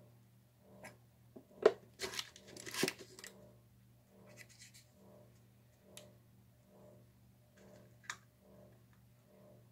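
Plastic paint bottles and cups being handled on a work table: a sharp knock, then a couple of seconds of crackling, crinkling plastic, with softer rustles and a few light clicks afterwards.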